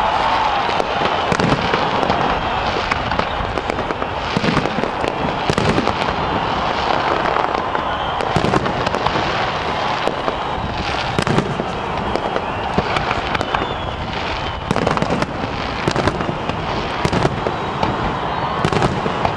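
Fireworks display: aerial shells bursting one after another, irregular bangs and pops a couple of times a second over a steady wash of noise.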